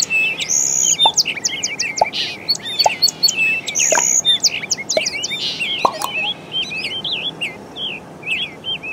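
Several small birds chirping and trilling, with quick, overlapping calls.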